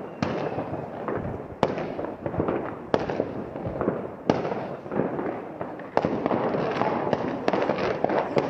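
Many fireworks and firecrackers going off at once: a sharp bang every second or so over a continuous crackle, which grows denser and louder about six seconds in.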